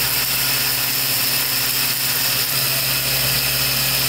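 CNC vertical machining center (DNM 5700L) milling aluminum soft jaws with an end mill under flood coolant. The spindle and cut make a steady machining noise with a constant hum, and coolant sprays over the work.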